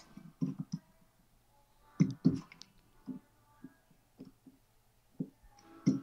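Hand cutters clipping the copper conductors of Romex electrical cable to length, with handling of the cable: a string of scattered short clicks, the loudest two close together about two seconds in.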